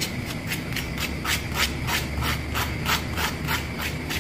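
Metal fork tines scraping repeatedly along the crisp fried wrapper of a spring roll, a dry crackly rasp at about three strokes a second. The sound shows how crispy the freshly fried shell is.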